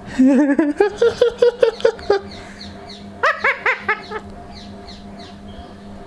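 Indian ringneck parakeet vocalizing: a quick run of rapid chattering notes for about two seconds, then a handful of short, sharp arched calls about three seconds in.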